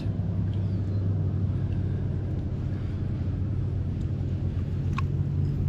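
Boat motor running with a steady low hum, with a short light click about five seconds in.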